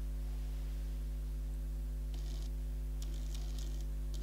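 Steady electrical hum, with faint soft scratching of a makeup brush stroked across the skin of the brow bone, a few short strokes in the second half.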